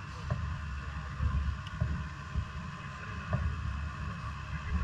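Quarter midget race car's Briggs & Stratton Animal single-cylinder engine running at a steady pitch, with wind buffeting the microphone in a heavy low rumble.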